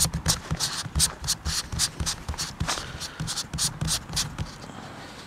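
A hand rubbing and brushing against the camera and its microphone: a fast, irregular run of short scuffing, rustling strokes that dies away about four and a half seconds in.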